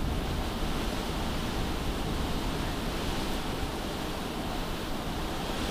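Steady hiss of background noise with no other sound in it.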